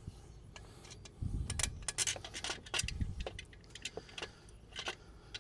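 Metal parts and tools clinking and clattering in quick irregular clicks while an alternator is fitted back onto the engine, with dull knocks about a second and a half in and again about three seconds in.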